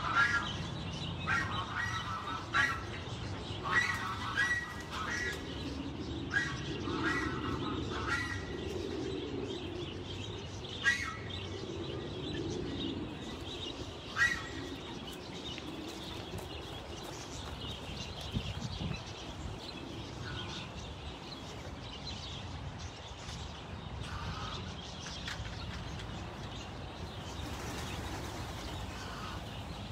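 Mixed aviary birds calling: clusters of short repeated chirps through the first several seconds, sharper single calls now and then, low cooing in the middle, and a flurry of doves' wings flapping near the end.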